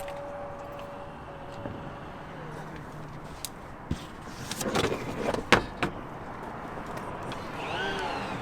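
Car running with a steady low hum, with a cluster of sharp clicks and knocks about five seconds in.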